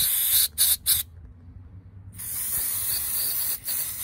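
Aerosol brake cleaner hissing as it is sprayed through a turbo oil feed banjo bolt to flush baked-on oil deposits out of its filter mesh. The spray comes in hissing bursts, stops about a second in and starts again about two seconds in.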